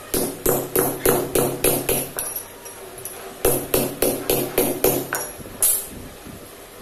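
Hammer striking a steel ring against a round die on a steel plate: a quick run of ringing metal-on-metal blows, about three a second, a pause of about a second, then a second run that stops near the end.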